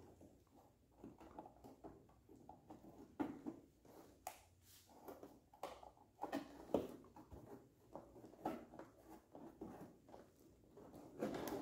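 Faint, irregular clicks and rustles of a hexagonal metal mesh grill being handled and pressed into the opening of a plastic car bumper cover.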